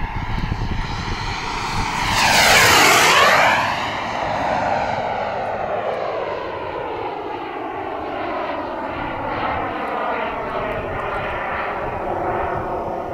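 Radio-controlled scale model of the IAI Tzukit jet trainer flying past under jet power. The engine's rushing whine swells to a loud pass about two to three seconds in. It then eases off as the model flies away, its tone sliding steadily downward.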